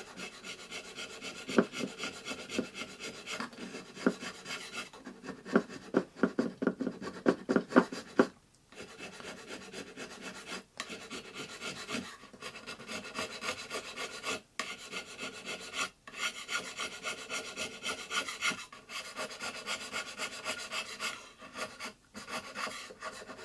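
A plane maker's float scraping the wooden bed of a Japanese plane (kanna) body in runs of quick, short strokes with brief pauses between runs. The strokes take down the high spots marked by the oiled blade, fitting the bed to the iron.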